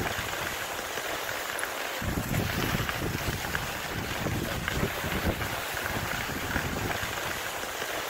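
Dog sled gliding over a snowy trail behind a running husky team: a steady hiss of the runners on snow, with gusts of wind buffeting the microphone from about two seconds in.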